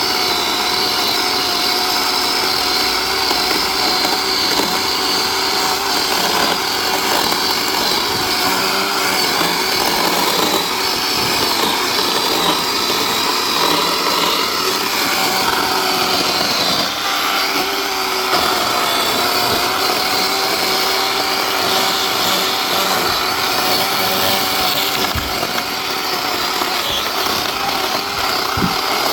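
DeWalt 20 V 12-inch battery chainsaw (DCCS621B) running steadily under load, its electric motor whining with chain noise as it slowly cuts through a thick tree limb.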